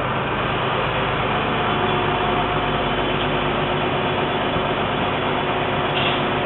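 CompAir C200 TS-24 diesel-driven portable screw compressor running steadily, a constant engine drone with a hum under it.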